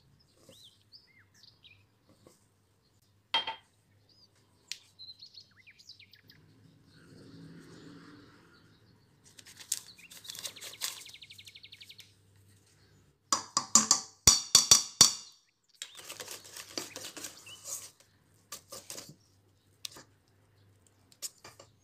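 Wire whisk stirring flour into cake batter in a metal bowl, with irregular clinks, knocks and scrapes against the bowl that are loudest a little past the middle. Birds chirp faintly in the background.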